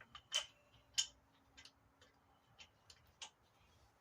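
Light, irregular metallic clicks, about six in four seconds, as lug nuts are handled and started by hand on the wheel studs.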